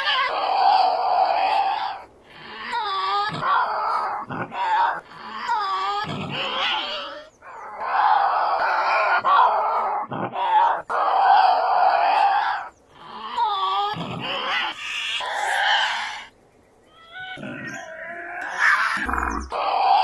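Tasmanian devil screeching and growling: a string of harsh, rasping calls of one to two seconds each, some wavering up and down in pitch, separated by brief pauses.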